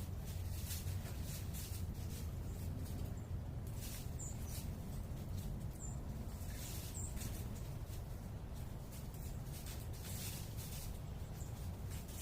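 Three short, high-pitched bird chirps spaced about a second or two apart over a steady low rumble of urban background noise, with scattered faint clicks.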